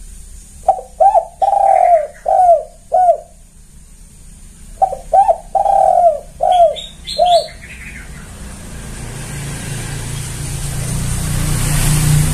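Spotted dove cooing: two phrases of about five coos each, a few seconds apart, the third coo of each phrase drawn out. In the second half a rushing noise with a low hum swells up and grows nearly as loud as the coos.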